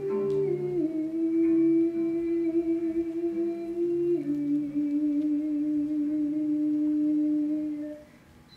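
A voice humming one long held note, which slides down a little in pitch about half a second in and again about four seconds in, then stops shortly before the end.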